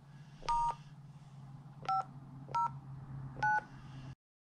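Four touch-tone (DTMF) dual-tone beeps keyed on a handheld ham radio's keypad, dialing the repeater's autopatch access code, starting with the star key. The first beep is a little longer than the other three, all over a low steady hum, and the sound cuts off suddenly near the end.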